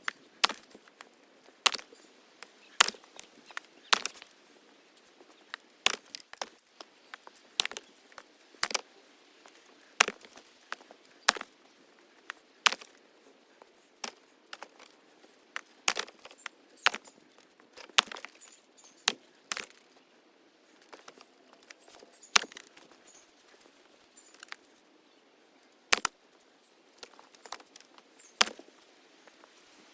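Axe chopping wood: sharp, irregular chops every second or two, with smaller knocks and clicks between.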